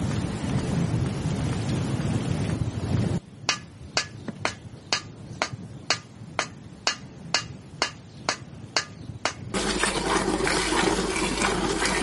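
Field recordings of the countryside, cut together. First a steady rushing noise with a low rumble. About three seconds in it cuts to sharp, evenly spaced knocks, about two a second. About three seconds before the end it cuts again to a busier scene with small clinks.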